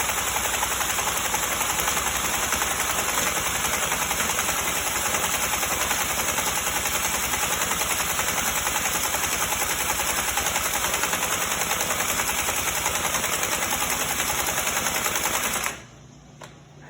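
Troy-Bilt TB685EC four-cycle string trimmer engine spinning fast and steadily with a rapid, even rattle for about fifteen seconds, then cutting off abruptly near the end.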